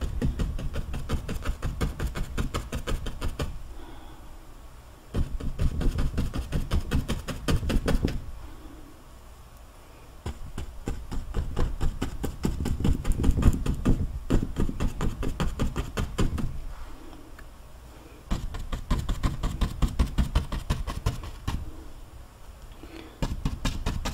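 A paintbrush dabbing rapidly against a stretched canvas, laying on oil paint with quick tapping strokes that thud on the canvas. The tapping comes in runs of a few seconds with short pauses between.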